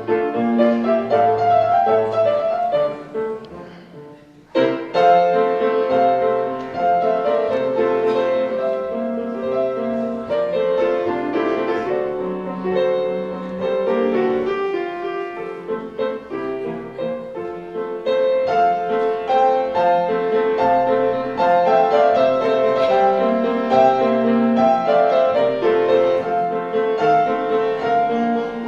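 Piano music: a song played on the piano, dipping quiet briefly about four seconds in and then coming back in suddenly and fully.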